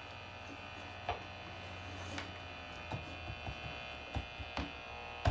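Plugged-in clock radio giving off a steady electrical hum and buzz, with a few light clicks and taps.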